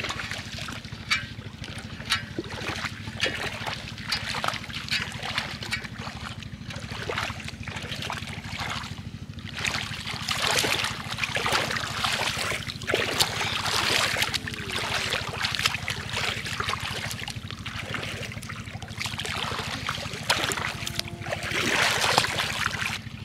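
Water splashing and sloshing as hands thrash through shallow water chasing a fish. The splashing comes in irregular bursts and gets heavier in the middle and again near the end, over a steady low hum.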